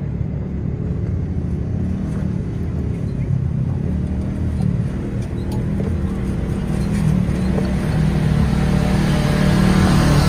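Side-by-side UTV engines running as a convoy drives past, a steady low rumble that grows louder near the end as another machine comes close.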